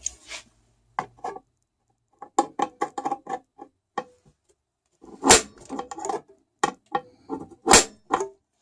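A run of short knocks and clinks from tools and metal parts being handled, some briefly ringing. Two louder knocks come about five and eight seconds in.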